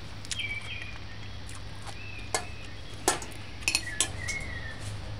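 A metal fork clinking against a ceramic plate a few separate times as the plate is handled and set down.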